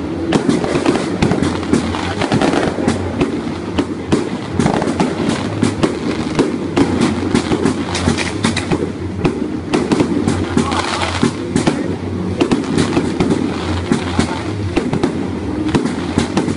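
Fireworks display going off: a continuous barrage of overlapping bangs and crackles with no pause.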